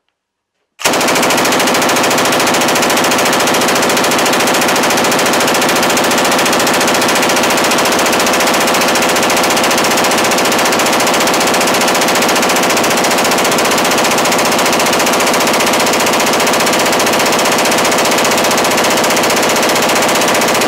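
Zastava M84 belt-fed machine gun in 7.62x54R firing one very long, unbroken burst of fully automatic fire, starting about a second in and lasting some twenty seconds.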